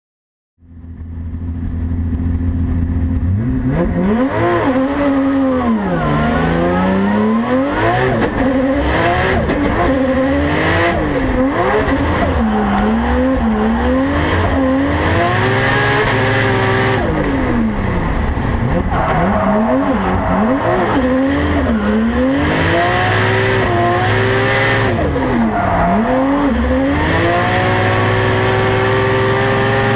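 Turbocharged 1.5JZ inline-six of a Toyota Mark II (JZX90) drift car, heard from the passenger seat, revving hard and repeatedly rising and falling in pitch as the car is drifted, with tire squeal. The sound starts about half a second in, and near the end the engine holds a steady high rev.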